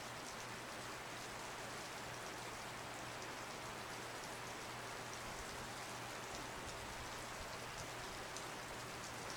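Heavy snowfall: a soft, steady hiss of snow coming down, with faint scattered ticks of flakes landing.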